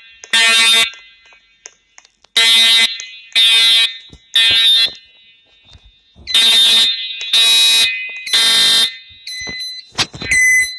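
Voice-evacuation fire alarm sounding its alarm tone in the temporal-three pattern between spoken messages: loud, buzzy half-second blasts in groups of three, with a pause after each group. Near the end come a few short, higher steady tones.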